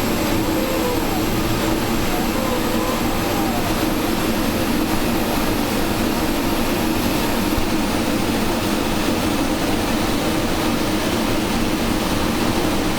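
Large multi-jet glassblowing hand torch (Delta Elite, about 52 jets) running with a steady flame roar.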